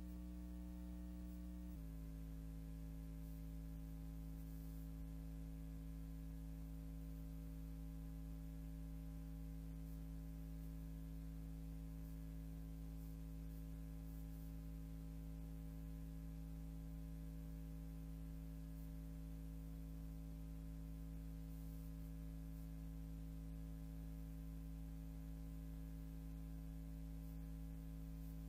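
Steady electrical hum with a buzzy stack of overtones and no other sound. Its tone shifts slightly about two seconds in.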